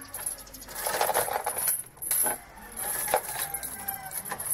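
Metal chain leash clinking and jangling in short irregular bursts as a wet dog is handled.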